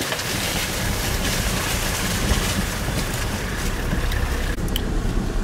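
Wind rushing over the microphone over the low rumble of a four-wheel drive running along a rough bush track. The hiss drops away near the end.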